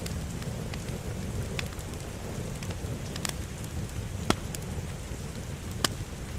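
Wood fire crackling in a fireplace: a steady low rumble of burning with scattered sharp pops, the two loudest about four and six seconds in.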